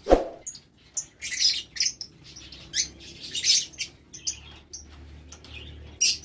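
Lovebirds chirping in short, shrill, irregular calls, with a single thump right at the start.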